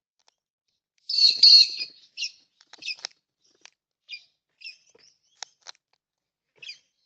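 Birds calling at a backyard feeder: a loud, harsh screech about a second in, then a string of shorter high calls and sharp clicks.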